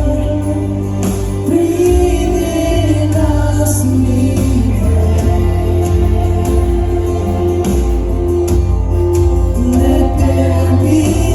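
Live worship band playing a contemporary gospel worship song, with steady bass and drums under held, sung melodic lines.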